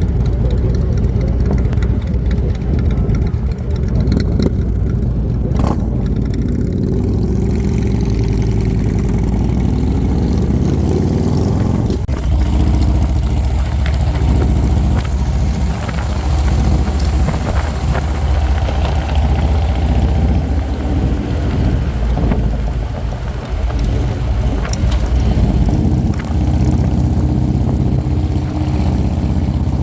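Harley-Davidson motorcycle's V-twin engine running steadily under way. The engine note changes about twelve seconds in and again a few seconds before the end.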